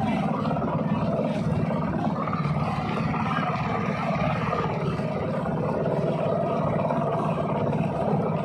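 Outrigger boat's (bangka) inboard engine running steadily under way, a constant low pulsing drone, with wind rushing over the microphone.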